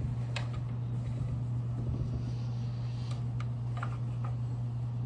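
Steady low hum, with a few faint light taps and rustles from hands handling a crocheted acrylic panel and hook on a table.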